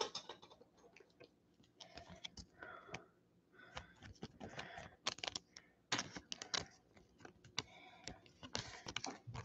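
Faint, irregular clicking and rustling of trading cards being handled, with a card slid into a thin clear plastic sleeve.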